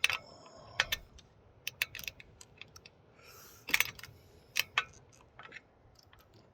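Irregular sharp clicks and knocks, a few each second, with a short rustle about three and a half seconds in: hand work fastening a loose snorkel mount.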